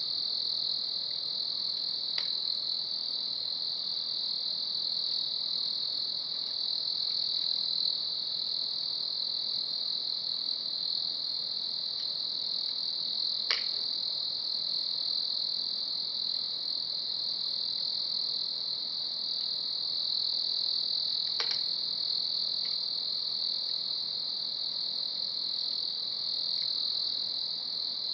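Steady, unbroken high-pitched chorus of night insects, with three sharp pops from burning firewood: one a couple of seconds in, one near the middle and one about three quarters through.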